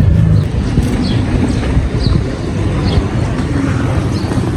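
Low rumble of a moving vehicle heard from inside, with wind buffeting the microphone; a steady engine hum drops away about half a second in, and a short high chirp recurs about once a second.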